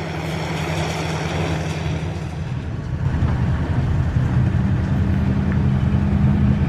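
Maxxi Bimo NDR 102L combine harvester's engine running steadily, getting gradually louder as the machine comes closer.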